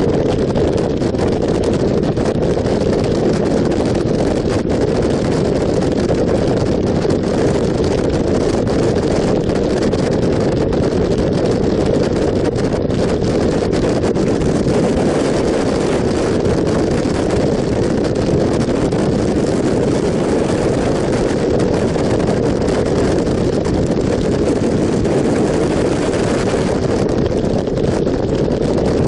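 Motorcycle riding at steady road speed: wind rushes over the camera microphone and mixes with engine and tyre noise in a steady, unbroken roar.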